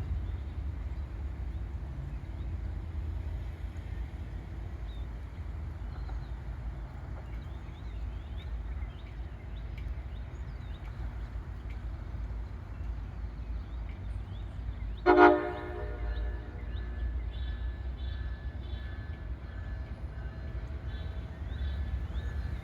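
MARC commuter train's diesel locomotive rumbling low and steady, with one short horn blast about two-thirds of the way through.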